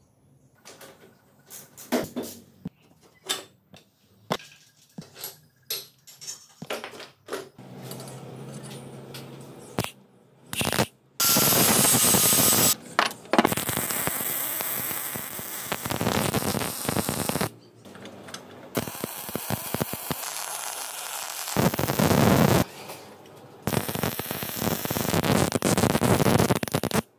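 Scattered clicks and knocks for about ten seconds, then electric arc welding on steel: several runs of steady crackling hiss, each a few seconds long, with short breaks between.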